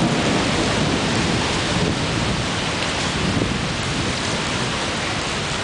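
Heavy rain falling steadily in a thunderstorm, an even hiss with a low rumble of thunder underneath.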